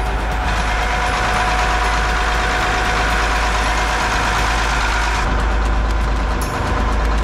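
The inboard engine of a 44-foot Sea Ray cruiser idling: a steady low running sound with a constant hum. A rushing noise over it stops about five seconds in.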